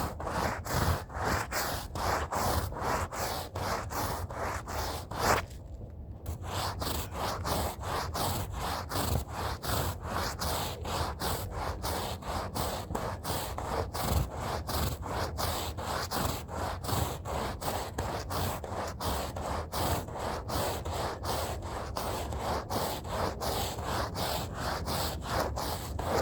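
A hand scrub brush scrubbing a rug's fibers in rapid back-and-forth strokes, about three a second. There is a brief pause about six seconds in, just after a sharp click.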